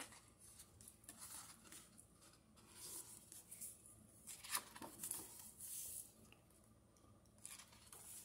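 Faint papery swishes and rustles of the thick pages of a hardcover comic book being turned by hand, several in turn.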